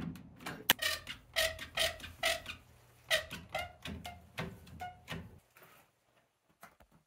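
One-handed quick-release bar clamps being tightened onto a wooden slat, the trigger ratcheting in a run of sharp clicks, two or three a second, that stop about five and a half seconds in.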